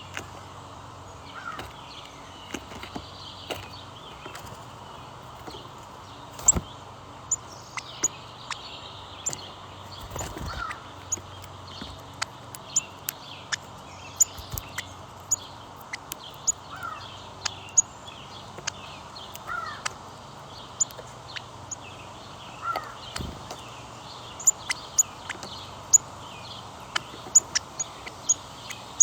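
Birds calling: many short, sharp high chips throughout, with an occasional short, lower call every few seconds and a few brief knocks.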